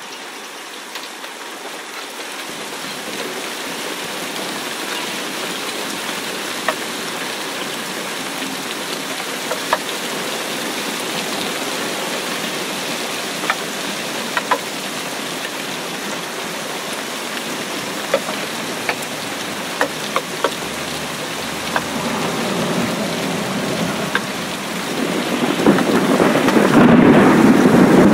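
Rain falling into a flooded puddle: a steady patter with scattered sharper drips that slowly grows louder, then turns much louder and fuller about 25 seconds in.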